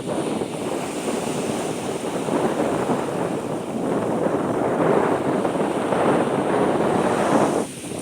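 Rushing noise of wind and surf, swelling and easing, loudest in the second half and dropping off suddenly near the end.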